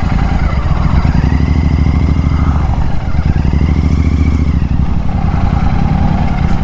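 Royal Enfield Continental GT 650's 648 cc parallel-twin engine and exhaust running steadily as the motorcycle is ridden, its note dipping briefly about three seconds in.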